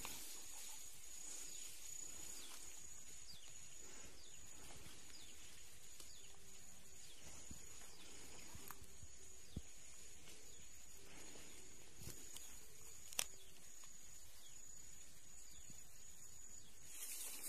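Grassland ambience with insects calling: a high, thin, steady pulsing call over a soft background noise. Two short sharp clicks stand out, the louder about thirteen seconds in.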